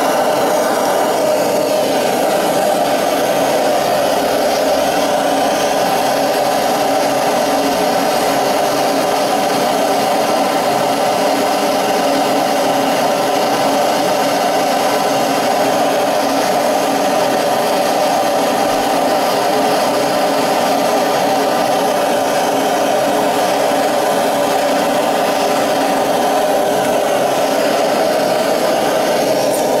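A backyard melting furnace's burner running steadily, a continuous loud rush of flame and air that does not change.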